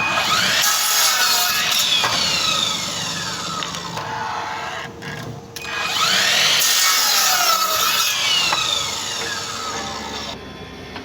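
Mitre saw running through two cuts, one about a second in and one about six seconds in; each time the motor's whine falls in pitch as the blade winds down.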